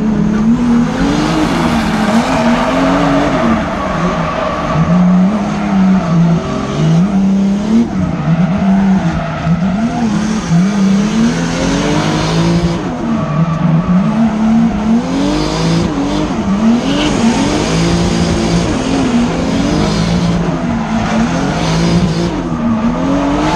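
Drift car engine revving up and down again and again, the pitch climbing and dropping through each slide, with tyres squealing and skidding sideways.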